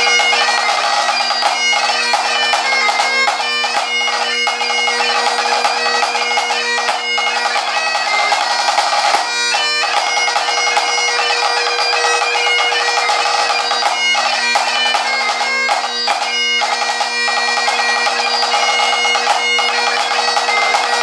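Great Highland bagpipe playing a march, its drones held steady under the chanter melody, with a pipe band snare drum playing crisp strokes and rolls along with it.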